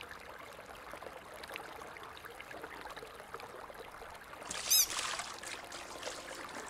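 Steady running, trickling water from a flooded bathroom. About two-thirds of the way in comes a brief high squeak, the loudest sound of the stretch.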